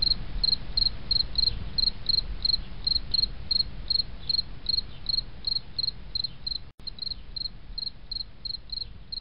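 A cricket chirping steadily, about three short high chirps a second, over a low background rumble; the sound cuts out for a split second about two-thirds of the way through.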